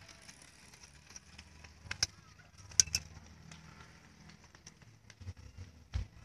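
Low steady background rumble with scattered clicks and knocks, the sharpest a couple of seconds in, and a dull thump near the end.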